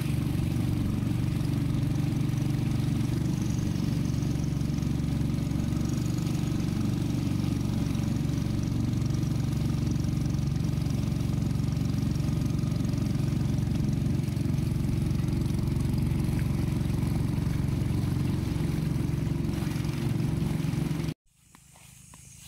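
A small wooden river boat's motor runs steadily while the boat is under way. It cuts off abruptly about 21 seconds in, leaving only faint clicking.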